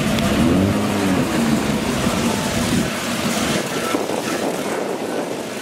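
A car engine running close by, its pitch swinging up and down over a deep rumble; the rumble fades out about three seconds in.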